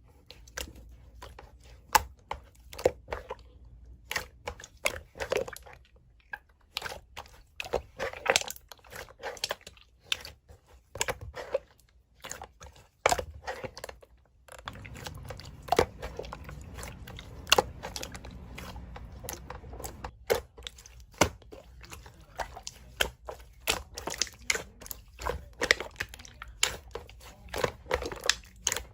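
Hands squeezing, pressing and stretching slime, making many sharp, irregular clicks, pops and crunching sounds.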